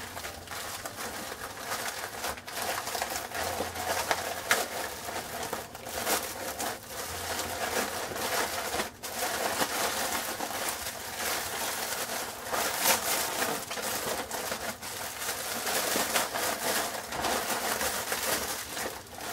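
Plastic poly mailer being torn open and handled, its film crinkling and rustling in short irregular bursts as the black plastic-wrapped contents are pulled out.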